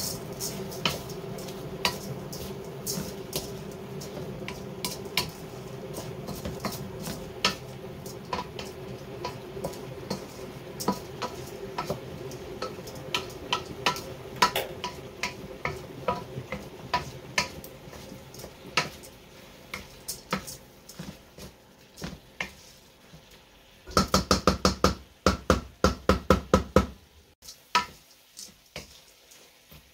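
A wooden spatula stirring rice, chicken and mushrooms in a stainless steel pan, scraping and knocking against the metal in irregular clicks, with a low hum in the first half. Near the end there is a louder run of rapid scraping strokes lasting about three seconds.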